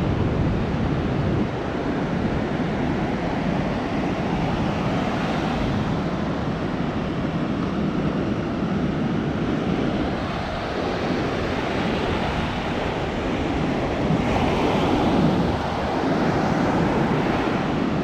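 Ocean surf breaking and washing up a sandy beach, an even rushing that swells louder a few seconds before the end, with wind buffeting the microphone.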